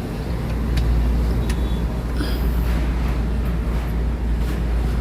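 Steady low rumble of a motor vehicle running nearby, with a few light clicks.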